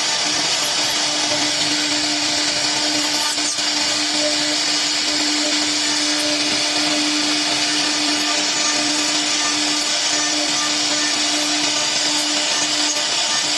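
CNC router spindle cutting wood: a steady, unbroken machine hum with a constant tone over a dense hissing cutting noise.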